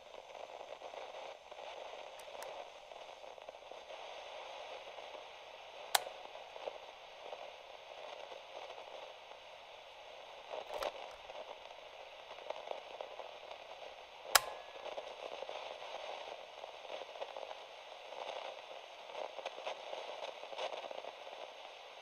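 Faint static hiss with scattered crackle, broken by three sharp clicks about six, eleven and fourteen seconds in.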